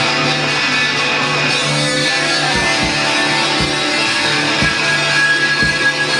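Live rock band playing loud electric guitar over a held low note, with low drum thumps about once a second.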